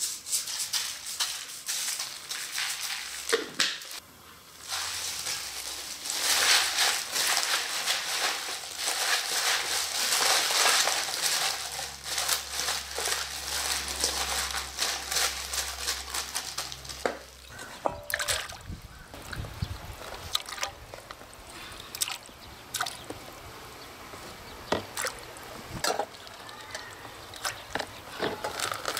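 A plastic-gloved hand tossing and mixing seasoned leafy greens in a stainless steel bowl, making a wet rustling and squishing. After about 17 seconds this gives way to scattered sharp clicks and knocks.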